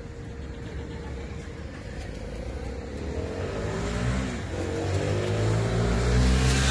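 A motor vehicle engine revving up, rising in pitch and growing louder over the last few seconds, over a steady low rumble.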